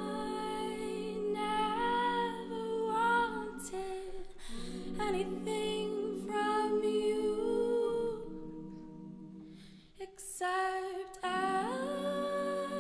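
An a cappella group singing sustained chords that change every couple of seconds. About eight seconds in the chord fades away almost to nothing, then the full chord comes back in a little after ten seconds.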